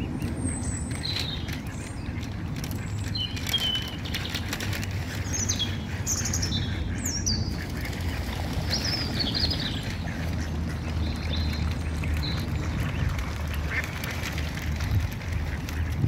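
Waterfowl calling: scattered short, high-pitched falling peeps over a low steady rumble.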